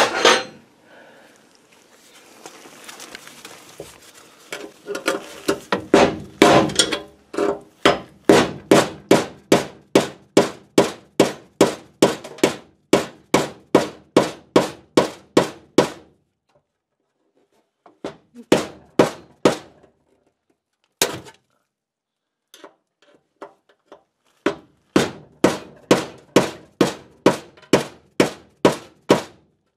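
Hammer striking a screwdriver braced against the rusted locknut of an old kitchen sink drain strainer, a steady run of blows about two and a half a second. The blows stop for a few seconds, come again briefly, then resume in a second steady run near the end.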